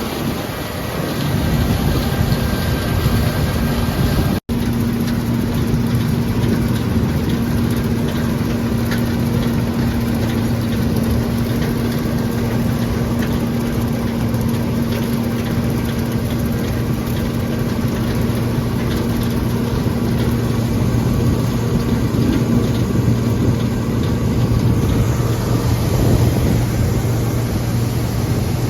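John Deere 7720 combine running steadily, a constant engine hum with the rush of the machine working, cutting out for an instant about four seconds in.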